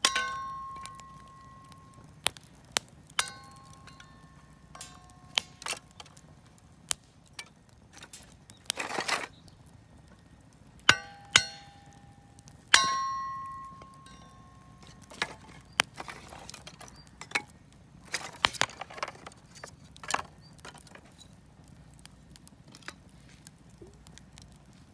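Metal pieces clinking and knocking at a bonfire in a scattered series of sharp strikes, some ringing briefly with a clear tone. About nine and eighteen seconds in there are short scraping, rustling sounds.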